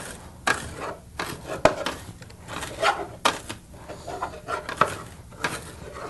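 Plastic slotted spatula scraping across a nonstick frying pan, breaking up and turning ground beef as it browns, in irregular strokes with an occasional sharp click.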